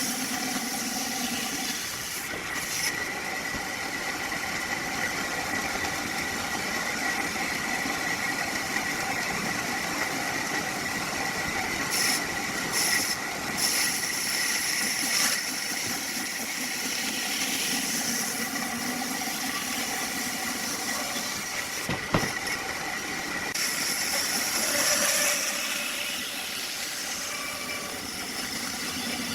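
Woodworking machinery running steadily, a continuous mechanical noise with a constant high whine and hiss, with one sharp knock about two-thirds of the way through.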